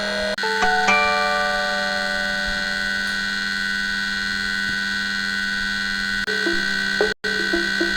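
Samsung Galaxy S7 stock ringtones: a chord of held electronic tones that slowly fades, then about six seconds in a different ringtone starts with quick, bright repeated notes, broken by a brief dropout just after.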